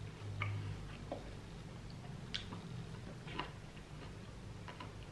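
Quiet eating sounds: faint, scattered small clicks and soft wet noises as a person chews and handles fried chicken tenders, over a low steady hum.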